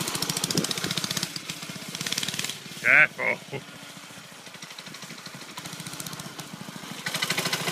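Small engine of a child's off-road go-kart buggy running with a rapid firing beat. It fades after about a second as the kart drives off across the lawn, stays faint, and grows louder again near the end as the kart comes back.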